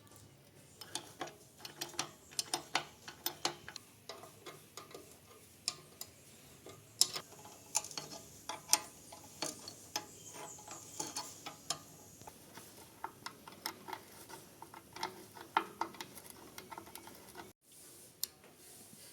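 Irregular light clicks and taps of small hard objects being handled, several a second in places, broken by a brief dropout near the end.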